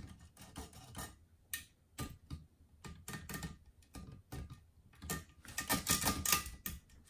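Olivetti Lettera 31 manual portable typewriter being typed on. Its keys and typebars strike the platen in an irregular string of clicks that comes faster about five seconds in.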